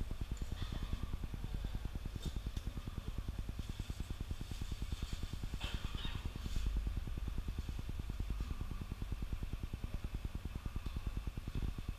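A low machine hum, pulsing fast and evenly.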